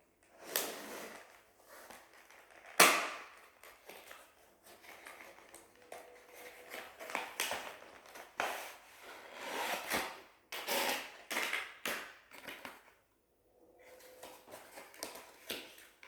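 Remote-control packaging being handled and opened by hand: irregular rustling and crinkling with clicks, the loudest a sharp snap about three seconds in, and a brief pause near the end.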